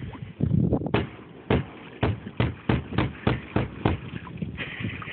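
A Glock 27 .40 S&W pistol fired nine times with its muzzle held under the water, each shot throwing up a splash. The shots speed up to about three a second after the first few, and the pistol goes through every round underwater without a stoppage.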